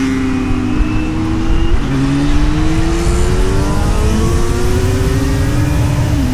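Kawasaki Z900's inline-four engine accelerating through the gears. The revs climb, drop at an upshift about two seconds in, then climb again to another upshift near the end.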